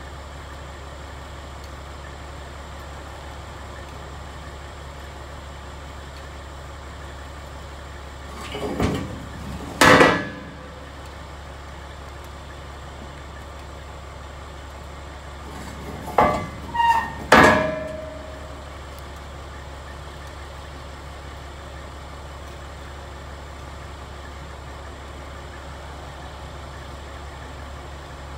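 Steel ramp flaps on a lowboy trailer being flipped up by hand, each landing with a loud metal clang that rings briefly: two clangs about a third of the way in, then three more a few seconds later. An engine idles steadily underneath.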